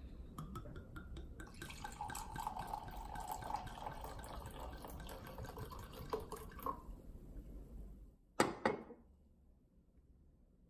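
Red wine poured from a bottle into a wine glass for about five seconds, then two sharp knocks as the glass wine bottle is set down on the stone counter.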